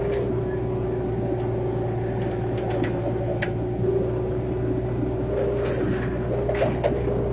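Excavator's engine running steadily with a constant drone, with a few sharp clicks and knocks around the middle and again near the end.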